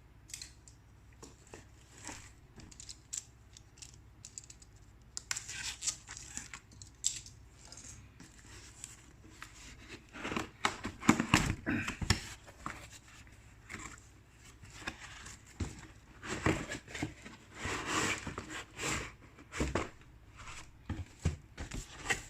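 A cardboard box being opened by hand: packaging cut and torn, with irregular clicks, scrapes and rustling, busiest in two stretches around the middle and toward the end.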